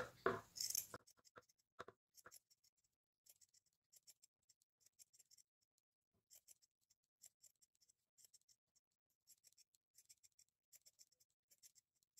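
Scissors snipping burlap (jute) fabric in a run of short, faint snips as small slits are cut around its edge. The snips are strongest in the first couple of seconds, then thin out to sparse ticks.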